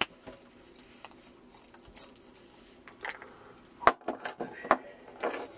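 Keys jangling and sharp metal clicks as a GE Best padlock is worked with an operating key in its interchangeable core. The clicks are scattered, thickest and loudest between about three and five seconds in.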